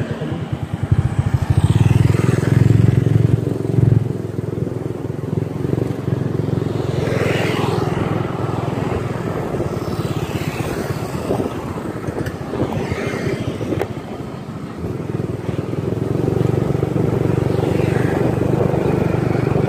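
Motorcycle ridden along a road, heard from on board: the engine runs steadily under a rush of wind on the microphone. The sound eases off about two-thirds of the way through and builds again.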